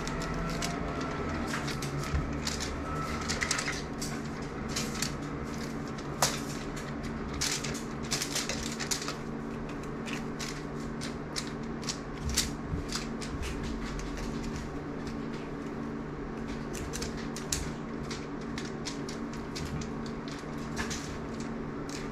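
A cat batting at and biting a wand toy with a plastic and feather end: irregular clicks, taps and rustles of the toy knocking about, over a steady low hum.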